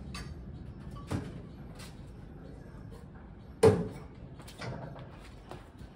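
A few knocks and clunks as parts of a homemade vehicle's rooftop seat and fittings are moved and set in place, one much louder about three and a half seconds in.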